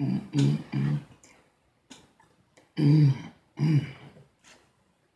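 A woman making short closed-mouth hummed 'mm' sounds: three quick ones, then two more about three seconds in.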